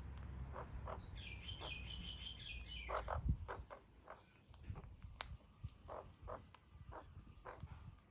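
Australian magpie giving a short, quiet warbling call of quickly stepping notes, starting about a second in and lasting about two seconds, followed by a scatter of short clicks.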